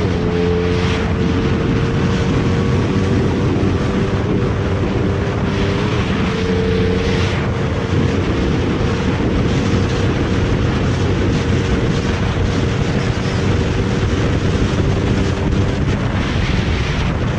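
Motorcycle engine running at a steady pitch while riding, heard from on board with heavy wind noise on the microphone. The engine note shifts briefly near the start and again about six seconds in.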